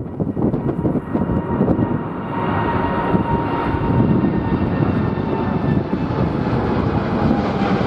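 Jet airliner's engines whining as it passes, a steady whine of several tones that builds about two seconds in and drops slightly in pitch near the end. Heavy wind buffets the microphone with a low rumble throughout.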